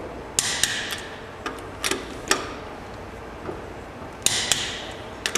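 Click-type torque wrench and socket working the lug nuts of a steel wheel, set to 75 foot-pounds: scattered sharp metal clicks and clinks. Two louder ones ring briefly, about half a second in and about four seconds in.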